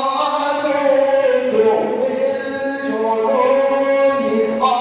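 A man reciting the Quran in the melodic tajweed style, drawing out long vowels into held notes that shift in pitch a few times.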